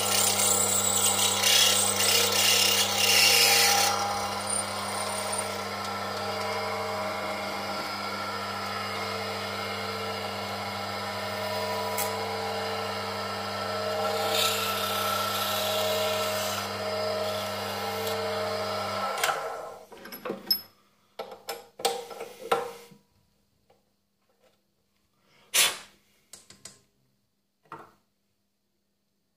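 Benchtop metal lathe running with a steady motor hum while a drill bit in the tailstock chuck cuts into the spinning workpiece for the first few seconds, with a shorter scraping cut about halfway. The motor is switched off about two-thirds of the way in and the hum stops, followed by a few clicks and knocks as the part is handled.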